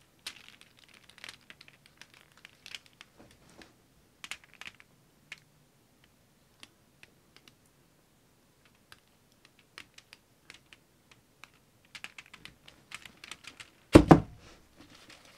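Sparse light clicks and taps as a paint-coated stretched canvas is tilted and handled, then one loud knock near the end as the canvas frame comes down against the table.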